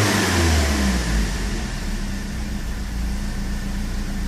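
BMW M42 four-cylinder engine dropping back from a rev about a second in, then idling steadily. It is running after a warm start that brought on a spell of sputtering, which the owner suspects is the engine flooding, perhaps from dripping injectors.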